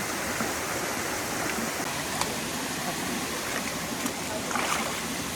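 Steady rushing of a waterfall's water, with faint voices of people nearby about four and a half seconds in.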